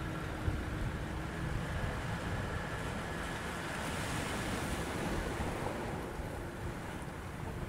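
Wind buffeting the microphone and water rushing past the hull of a small fishing boat under way, with the boat's outboard motor humming steadily underneath.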